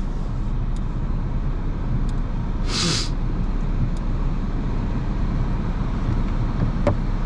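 Car engine idling steadily, with one short, sharp hiss about three seconds in.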